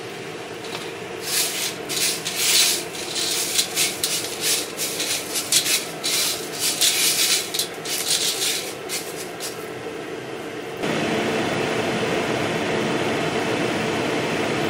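Coffee beans rustling and scraping in irregular bursts as a hand stirs them around a home-built stainless-steel roasting bowl, over the roaster's steady hum. About eleven seconds in the stirring stops and a louder, even rushing noise takes over.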